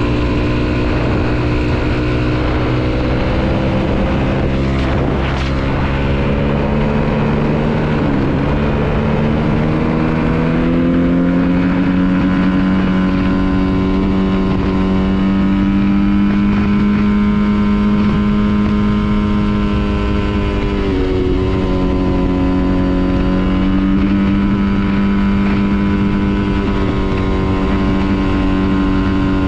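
A 2022 Honda CRF250RX dirt bike's single-cylinder four-stroke engine running hard at high revs while accelerating to about 100 km/h on a gravel road. Its pitch climbs over the first ten seconds or so, then holds high, with two brief dips, about a third and about two-thirds of the way through.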